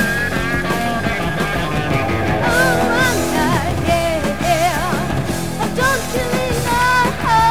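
Punk rock music: a full band recording with a wavering, bending high melody line coming in about two and a half seconds in.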